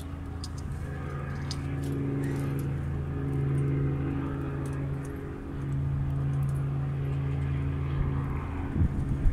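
Steady low hum of an engine idling, swelling a little and dipping briefly about five seconds in. A few sharp knocks come near the end.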